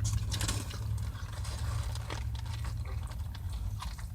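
Faint chewing and small clicking mouth sounds of a person eating, over a steady low hum.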